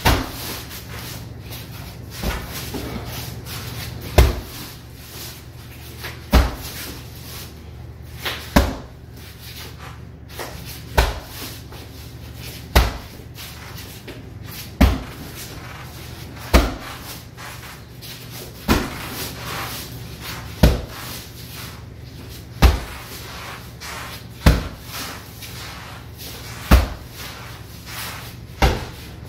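Everlast hanging heavy bag being punched and kicked, a hard thud about every two seconds with a few lighter hits between.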